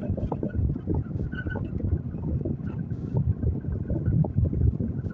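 Backhoe loader's engine running as it drives off across the site, mixed with wind buffeting the microphone in an uneven low rumble.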